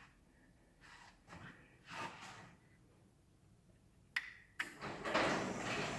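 Near silence, then a sharp click about four seconds in as a Craftsman belt-drive garage door opener is switched on, followed by the garage door starting to roll along its track with a steady rattling rumble of the rollers; the belt-drive motor itself is very quiet.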